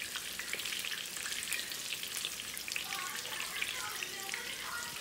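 Flour-dredged pieces frying in hot grease in a pan: a steady sizzle with frequent small pops and crackles.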